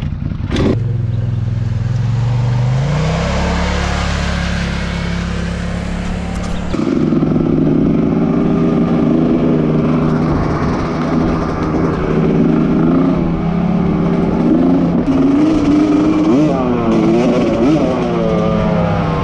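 Honda CR250R two-stroke single-cylinder dirt bike engine running under the rider, heard from on board. Its pitch steps up about seven seconds in, and near the end it rises and falls several times with the throttle.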